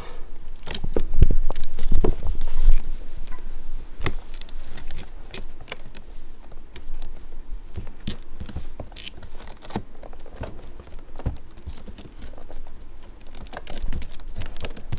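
Kittens scuffling and climbing, their claws catching on a cloth blanket and a woven straw cat bed. The sound is irregular rustles, scratches and taps, loudest in the first few seconds.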